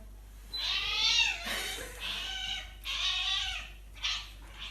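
Domestic cat meowing: three drawn-out meows, each rising and then falling in pitch, then a couple of short, fainter sounds near the end.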